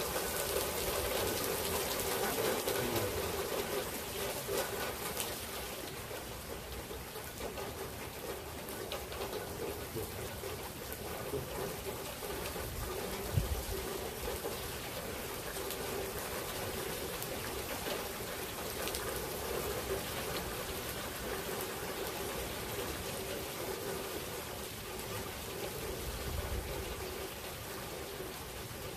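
Steady rain falling in a thunderstorm. It is a little heavier for the first few seconds and then eases to an even patter, with one sharp knock about halfway through.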